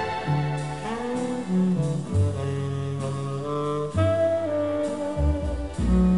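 Easy-listening instrumental music from a radio-station background-music tape: held melody notes over a bass line that moves note by note.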